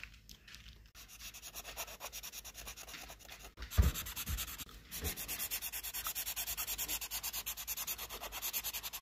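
Felt-tip marker scrubbing back and forth on a smooth sheet while colouring in, a rapid scratchy rub at about five strokes a second that steadies and grows louder in the second half. A single thump about four seconds in.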